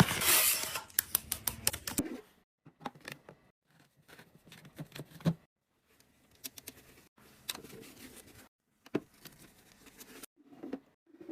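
Packaged drinks and snacks handled and set into a mini fridge: a burst of crinkling packaging with many clicks in the first two seconds, then scattered taps, clicks and short rustles with silent gaps between them.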